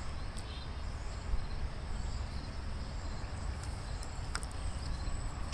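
Outdoor ambience: a steady low rumble with faint, high insect chirping throughout.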